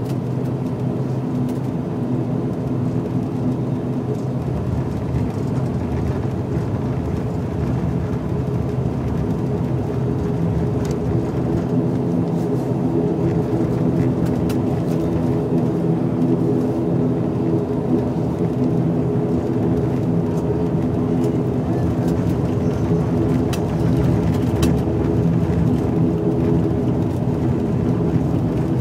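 ATR 72-500 twin turboprop engines and propellers heard from inside the passenger cabin as the plane taxis: a steady drone made of several low hum tones, growing a little louder towards the end.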